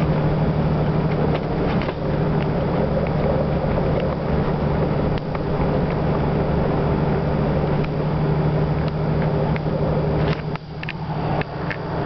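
Road and engine noise of a moving car heard from inside the cabin: a steady drone with a low hum. About ten seconds in it drops in level and turns uneven.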